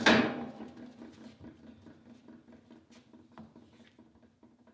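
A sharp clatter at the start with a brief ring, then scattered light clicks and knocks as a hose and tools are handled on a workbench.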